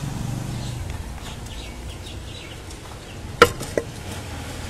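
Street background: a vehicle engine fades away in the first second, faint high chirps follow, then two sharp clicks, the first the loudest, about three and a half seconds in.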